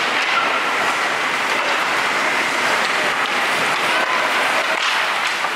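Ice hockey rink sound during play: a steady hiss of skates on the ice, with faint clicks of sticks and puck and distant shouts.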